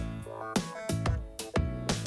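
Background music with a steady drum beat and pitched instrumental notes.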